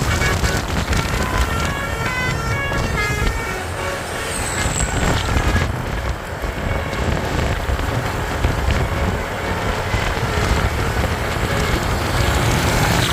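Bus 'basuri' telolet horn playing a quick run of short notes at shifting pitches for the first three seconds or so, over the steady rumble of the bus engine and road traffic.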